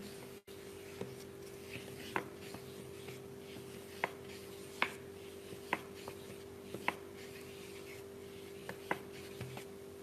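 Paintbrush rubbing softly over paper while blending wet paint, with several small ticks scattered through, over a steady faint hum.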